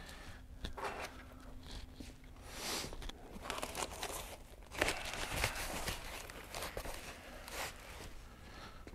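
Paper packing material rustling and crinkling as parts are handled and unwrapped at the crate, in irregular bursts with a few light clicks, loudest a little before halfway.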